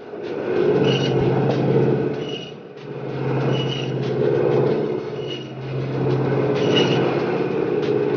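Electric meat band saw running and cutting through a piece of lamb into chops. The steady motor hum swells during each pass through the meat and dips briefly between passes, three times.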